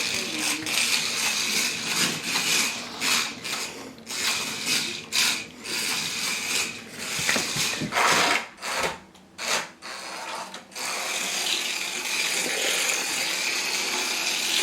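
Small electric motor and gears of a 1:64-scale Hot Wheels R/C toy car whirring in a string of short start-stop bursts, then running steadily for the last few seconds.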